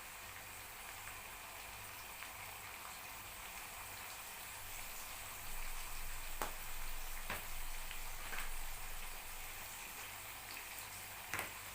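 Onion and pepper sauce frying in oil, a steady sizzle, with a few sharp clicks and a slightly louder stretch in the middle.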